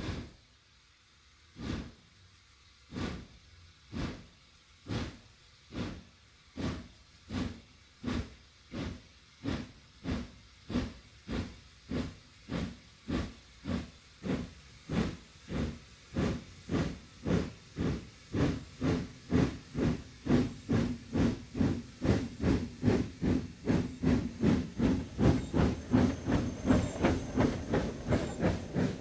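Steam locomotive starting a train up a steep grade: its exhaust chuffs begin slow and heavy, well over a second apart, then steadily quicken to about three a second and grow louder as the train gathers speed.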